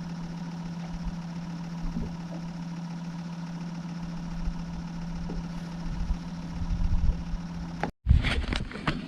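Boat motor running steadily with a constant hum. About eight seconds in it cuts off abruptly, followed by a louder, uneven rumble with knocks.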